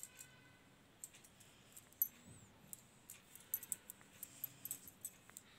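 Faint, irregular light clicks and ticks of a steel crochet hook and small pearl beads being handled while crocheting, coming more often in the second half.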